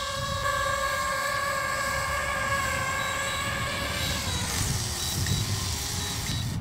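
DJI FPV drone's propellers whining steadily as it hovers just above the grass. About four and a half seconds in the pitch falls as the drone sets down to land.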